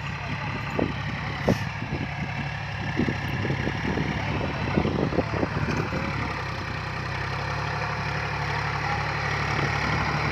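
John Deere tractor's diesel engine running steadily while it pulls a tillage implement through turned soil. Scattered knocks and clatter come through the first half or so.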